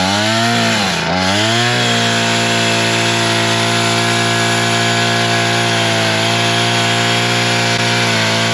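Small two-stroke engine of a wheeled chainsaw-driven brush cutter, revved up and down twice, then held steady at high throttle with the chain spinning as it is pushed into brush at the base of a tree.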